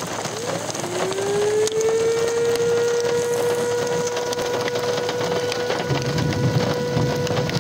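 Outdoor tornado warning siren winding up: its tone rises in pitch over about a second, then holds one steady note, and starts to wind down near the end. A low rushing noise swells underneath in the last seconds.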